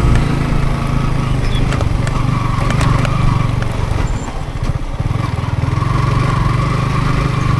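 Yamaha MT-15 motorcycle's single-cylinder engine running as the bike is ridden, the engine note easing off briefly about halfway through. A few sharp knocks come through.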